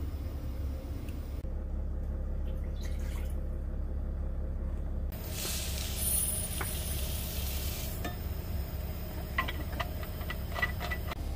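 Dry rice grains poured from a plastic bottle into a glass measuring cup, a steady hiss for a few seconds. This is followed by several light clicks and clinks as the bottle's cap and the glass cup are handled, over a steady low hum.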